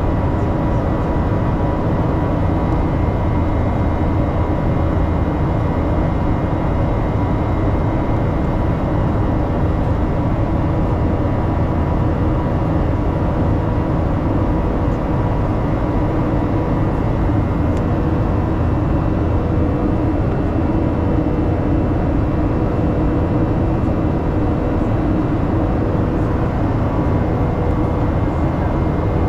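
Boeing 737-800's CFM56-7B engines heard inside the cabin, running at a steady setting: a constant rumble and hiss with a few thin, steady whining tones over it.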